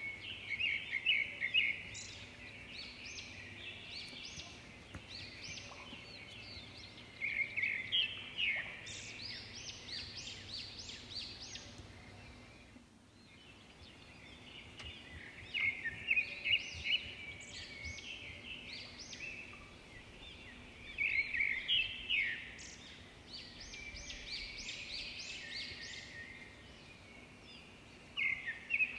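Birds chirping in repeated bouts of quick, high notes, with quieter spells between the bouts.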